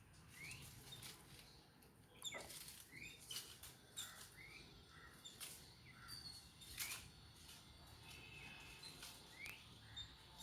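Jungle babblers calling faintly: scattered short rising chirps mixed with sharp, clicky harsh notes, a second or so apart.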